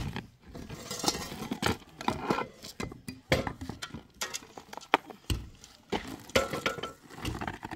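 Irregular knocks, scrapes and light clinks of manual work on a packed-earth roof: a hand tool striking the earth and rubble being shifted by hand.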